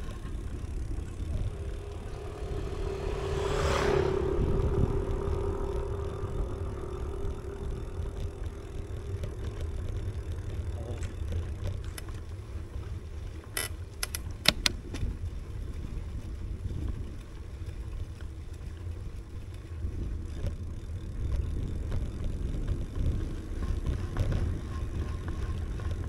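A motor vehicle passes close by about four seconds in, its engine note rising and falling away, over a steady low rumble. A few sharp clicks come about halfway through.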